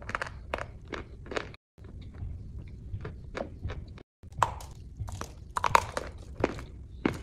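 A person chewing crunchy food, a crisp crunch about every half second. Two brief dead-silent gaps break it, and the crunches are louder in the last few seconds.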